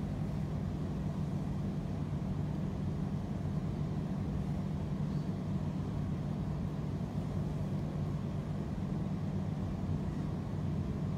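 Steady low hum of electric fans and air conditioning running, with no change in level.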